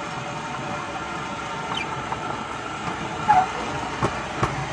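Battery-electric 7¼ inch gauge ride-on locomotive running along garden track: a steady electric-motor whine with wheel noise, a short squeak about three seconds in, and two sharp clicks near the end.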